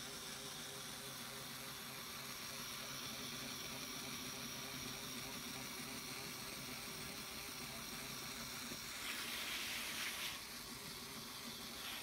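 Steady faint hiss of room tone, with a louder rush of hiss lasting about a second near the end and a short click just after.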